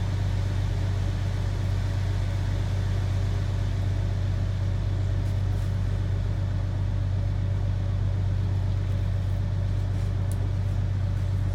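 A steady low machine hum, unchanging throughout, with a couple of faint clicks.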